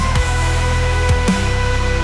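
Instrumental rock-electronic music: held notes over a heavy bass, with a deep drum hit about once a second and no singing.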